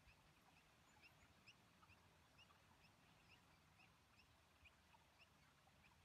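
Near silence, with faint short high chirps repeating evenly about twice a second, like a small bird calling.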